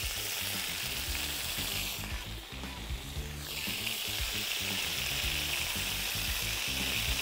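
Marinated chicken breasts sizzling as they sear in hot olive oil in a frying pan. The sizzle dips about two seconds in and swells again a second or so later.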